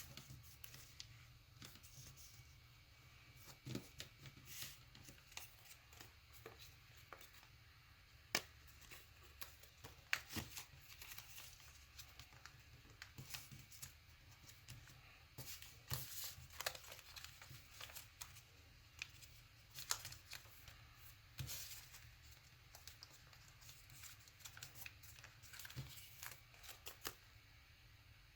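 Sheet of paper being folded and creased by hand: faint, irregular rustles and crisp little crackles as the folds are pressed.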